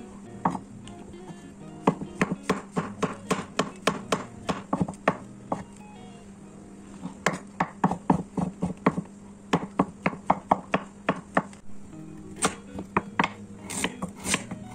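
A Chinese cleaver chopping food on a thick wooden chopping block. The sharp knocks come in quick runs of about three to four a second, with short pauses between runs and a few scattered chops near the end.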